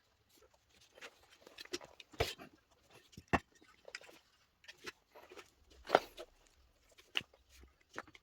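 Irregular clicks, taps and knocks of small hard objects being handled, with sharper, louder clicks about two, three and six seconds in.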